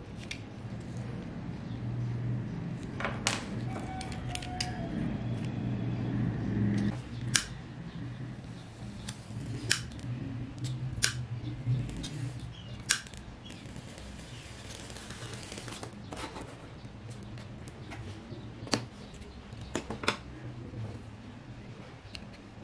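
Small metal parts and tools being handled on a workbench: scattered sharp clicks and taps, irregular and a few seconds apart, over a low steady hum.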